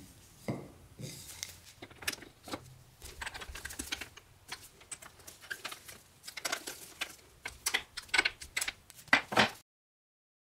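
Corian-and-plywood print blocks and metal and wooden press furniture knocking and clicking against each other as they are set into a letterpress chase: irregular light taps and clacks, the loudest two close together near the end, stopping abruptly.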